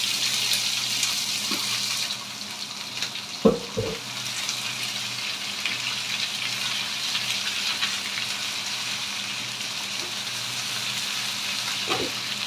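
Sliced bell peppers sizzling as they fry in hot oil with garlic, a steady high hiss that is strongest in the first couple of seconds. Two short knocks come about three and a half seconds in and another near the end. A faint steady hum, the kitchen extractor fan, runs underneath.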